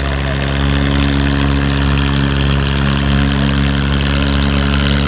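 Diesel engines of a Swaraj 855 and a John Deere 5310 tractor running steadily under heavy load as the two pull against each other in a tug-of-war.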